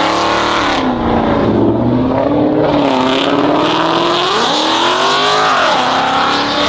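Loud vehicle engines revving hard, their pitch climbing and dropping several times.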